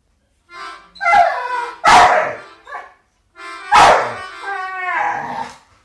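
Pit bull howling along to music in two long drawn-out howls that waver in pitch. This is the dog's 'singing'.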